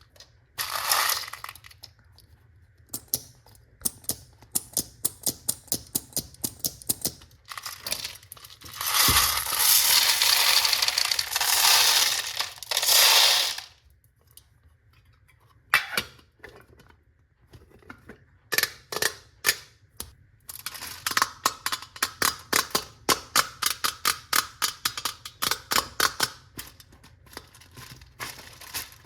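Small hard candies clattering: runs of quick sharp clicks and taps, with a few seconds of continuous rattling pour in the middle.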